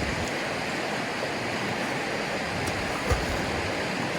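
Steady rush of moving water, with a brief soft thump about three seconds in.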